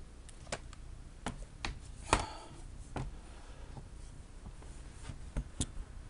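Scattered light knocks and clicks as an HP Envy Sleekbook laptop is handled: turned right side up, set down on a wooden desk and its lid opened. The loudest knock comes about two seconds in, and two more come close together near the end.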